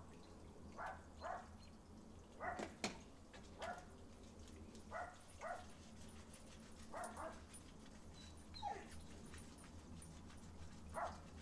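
Dog whimpering and yipping in short, separate calls, about ten spread over the stretch, one near the end sliding down in pitch, while it is being lathered and scrubbed in a bath.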